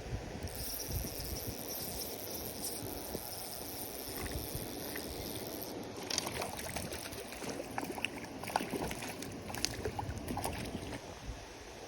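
A steady high whir for about five seconds, typical of a spinning reel being cranked, stops suddenly. Then comes a run of irregular water splashes and sloshes, like a hooked trout thrashing at the surface.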